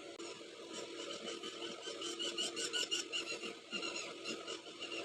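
A hand tool rasping in quick, repeated short strokes, several a second, busiest in the middle. This is work on the car body while the charging socket is being fitted.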